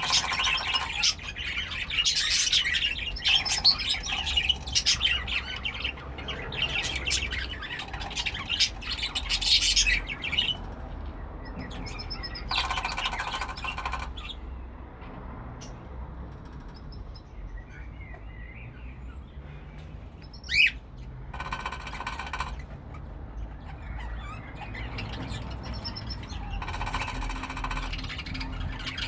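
Cockatiels chirping and calling, thickly for the first third. Later, three longer harsh squawks and a sharp single chirp stand out from quieter stretches.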